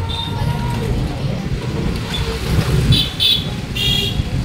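Busy market street noise: a steady low rumble of traffic and motion, with two short bursts of high-pitched beeping about three and four seconds in.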